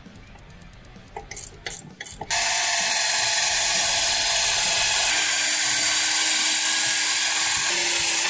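A few light clicks, then about two seconds in a cordless drill fitted with a wire brush starts and runs steadily, scrubbing rust off the hub face of a brake disc and a wheel hub.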